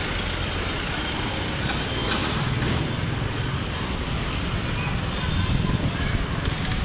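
Steady road traffic noise, with vehicles passing close by and the sound swelling slightly as they go past.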